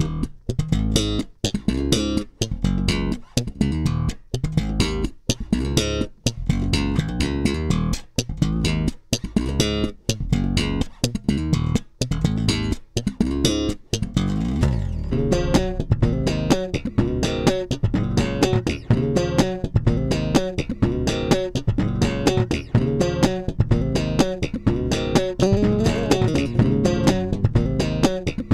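Solo electric bass guitar playing a choppy groove of short notes with sharp attacks and brief gaps between phrases. About halfway through there is a slide, and after it the line gets busier with higher notes.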